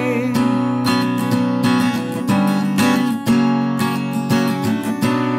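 Acoustic guitar strummed in chords, picked up by a Fifine T732 USB condenser microphone; a last chord is left ringing and slowly fading near the end.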